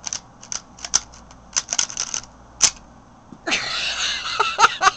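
Sharp plastic clicks and clacks from a broken airsoft pistol being handled, its slide and parts worked by hand, irregular and bunched together. About three and a half seconds in, a noisy hissing stretch of about a second and a half takes over.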